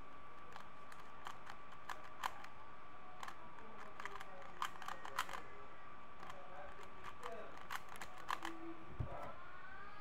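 A 3x3 Rubik's cube being turned fast by hand, its plastic layers clicking in quick, irregular runs. A soft knock sounds near the end as the cube is set down on the desk, and a steady faint tone hums underneath throughout.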